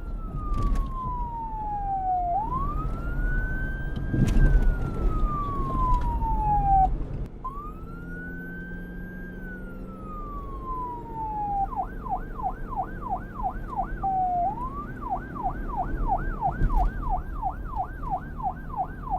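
Police car electronic siren in wail mode, slowly rising and then falling over about four to five seconds per cycle. About two-thirds of the way through it switches to the fast yelp, about four sweeps a second, breaks for one slow sweep, and goes back to yelping. A low vehicle rumble runs underneath.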